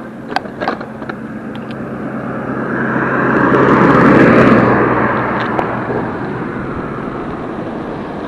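A pickup truck driving past, its engine and tyre noise swelling to a peak about four seconds in and then fading away, over steady wind and road noise from a moving e-bike. A few sharp rattles sound in the first second.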